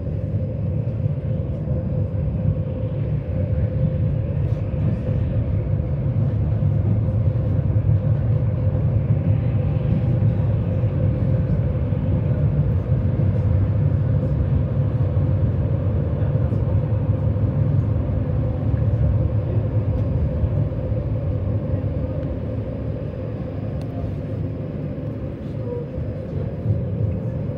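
Tram running along its track, heard from inside the car: a steady low rumble of wheels on rails with a constant hum above it, swelling a little in the middle and easing off near the end.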